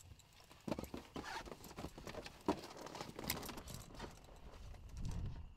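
Faint, irregular knocks, clicks and rustles of gear and boots as people climb into a helicopter's passenger cabin.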